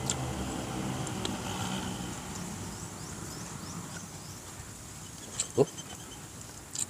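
Close-up eating sounds: chewing and small lip smacks as rice is eaten by hand, over a low hum in the first couple of seconds. About five and a half seconds in comes one short, loud rising squeal.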